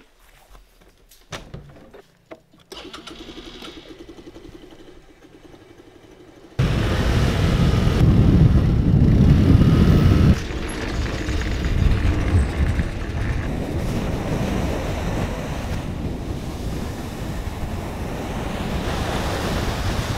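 A few knocks and clicks as a motorbike helmet is handled, then from about a third of the way in a sudden, loud, steady rush of wind buffeting the microphone while riding a moped, with the moped's engine running underneath.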